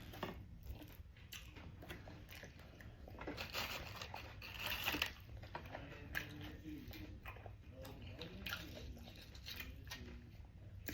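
Close-miked chewing and crunching of food with queso dip, a run of small crunches and wet mouth sounds, loudest about four to five seconds in.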